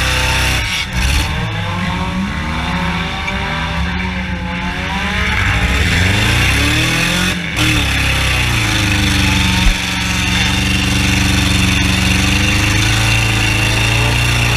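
Junk race car engines revving, repeatedly rising and falling in pitch as the cars accelerate and ease off around the track.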